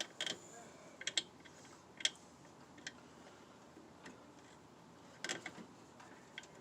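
Scattered light metallic clicks and taps, about eight at irregular intervals, as steel brake lines and their fittings are worked into place against a new brake master cylinder.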